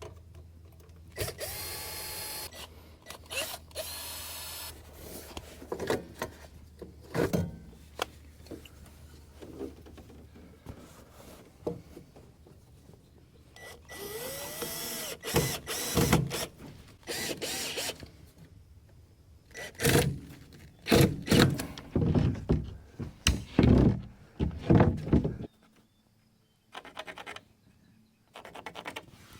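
Power drill-driver running in several short bursts, with knocks and rattles of handled hardware; the loudest knocks come in a cluster near the end.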